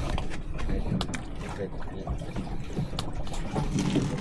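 Sea water lapping and slapping against the hull of a small drifting fishing boat, with wind rumbling on the microphone and a couple of sharp clicks about a second and three seconds in.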